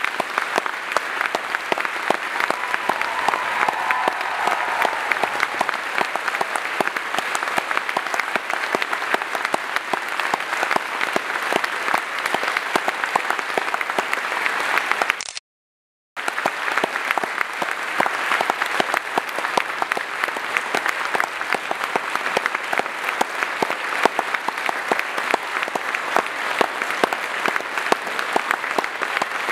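Large audience applauding steadily, a dense, even patter of many hands clapping. The sound cuts out completely for about a second midway, then resumes.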